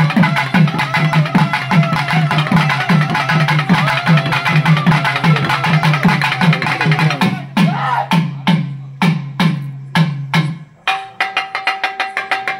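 Festival drum music: a steady beat of deep drum strokes, about two or three a second, under a busy layer of other percussion. About seven seconds in the busy layer drops away, leaving the drum beat bare, and near the end a steady held tone joins it.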